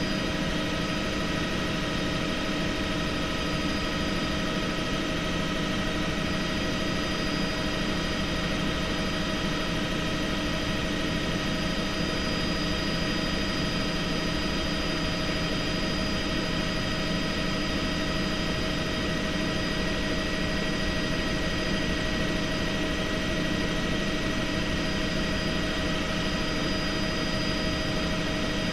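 Helicopter in steady cruise heard from inside the cabin: an unbroken engine and rotor drone with several constant whining tones over it.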